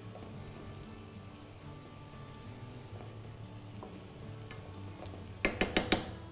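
Chicken in a cream and Parmesan sauce sizzling gently in a frying pan. Near the end there is a quick run of about five sharp knocks, the loudest sound here.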